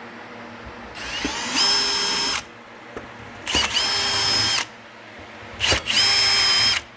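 Cordless drill boring into a metal countertop support bracket in three separate bursts, each spinning up and holding a steady whine for about a second before stopping.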